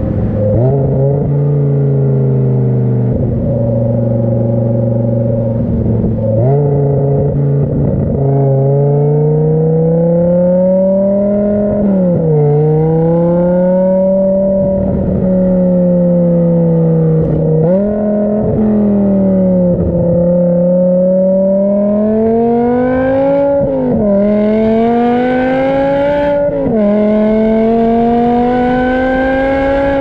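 BMW E60 M5's S85 V10 running through a custom exhaust with the muffler deleted, on the move. Its pitch climbs slowly under throttle and drops sharply several times.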